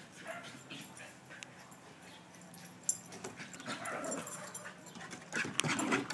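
Small terriers vocalizing in play: short yips and whines, louder about four seconds in and again near the end.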